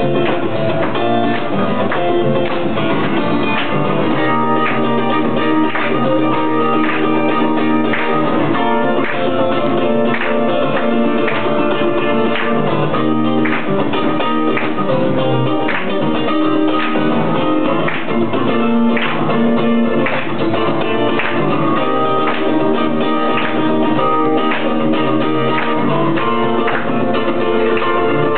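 Live duet of two guitars, an acoustic and an electric, playing a song together, the acoustic strummed in a steady rhythm.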